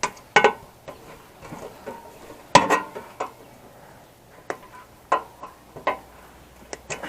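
Hard plastic and metal computer parts being handled and set down, a string of separate clicks and clatters, some with a short ring, the loudest about two and a half seconds in.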